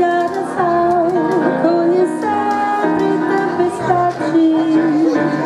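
Music: a wavering melody line over held accompaniment notes.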